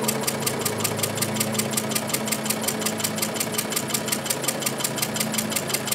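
Antique Essex hot air (Stirling) engine running pretty good: a rapid, even clatter from its crank and pistons, many beats a second, over a steady hum.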